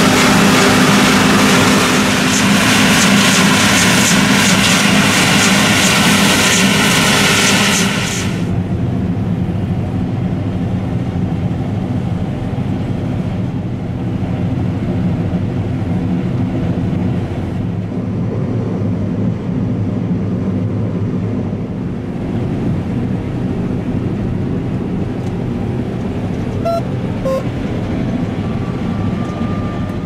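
John Deere S680i combine harvester, with its 13.5-litre six-cylinder twin-turbo engine, running steadily while harvesting rice. For the first eight seconds it is heard close from outside, loud and hissy as the straw chopper spreads residue. After that it is a duller, steady drone from inside the cab, with a couple of faint short beeps near the end.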